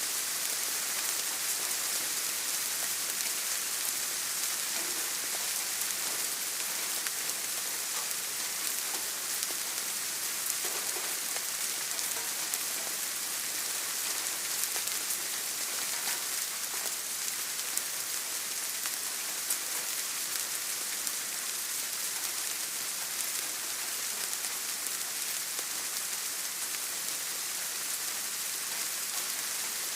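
Steady rain falling, an even hiss with many fine drop ticks.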